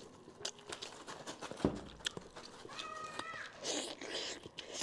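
Close-miked eating sounds: small mouth clicks and smacks, a short high-pitched tone a little past the middle, then the start of a bite into a piece of stewed monkfish near the end.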